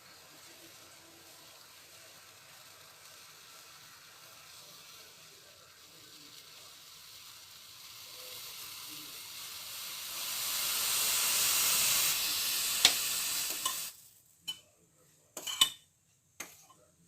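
Hot pan on a stove sizzling: a faint hiss swells into a loud, high sizzle over several seconds, then cuts off suddenly, followed by a few light clinks of metal utensils.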